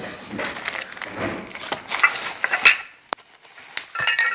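Parts being handled out of a box: rustling, with a few sharp clicks and short ringing metal clinks of hardware near the end.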